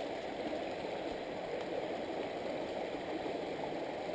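Small shallow stream running steadily, a continuous rush of water.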